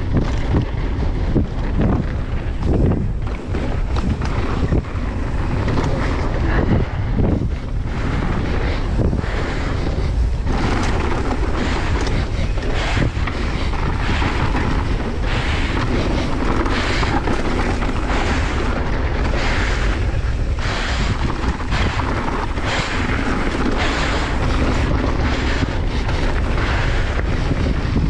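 Wind rushing over the camera microphone during a fast mountain-bike descent, with frequent short knocks and clatters as the bike goes over rough ground.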